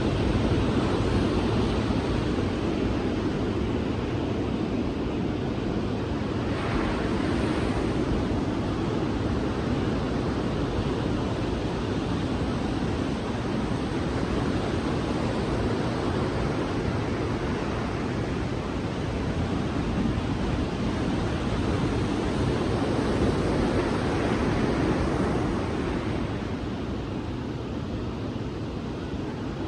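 Sea surf washing onto a beach: a steady rush of waves that swells and eases slowly, and dies down a little near the end.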